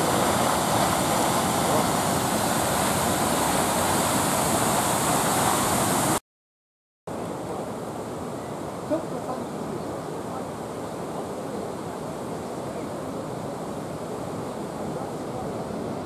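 Steady rush of Düden Waterfall pouring into the sea and the churning water below it. About six seconds in the sound cuts off for a moment, then comes back as a quieter, steady rush of the Düden River running over rapids.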